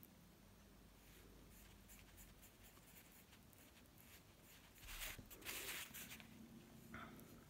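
Faint scratching strokes of a paintbrush laying acrylic paint on a wooden bird figure, with a louder scratchy rustle about five seconds in.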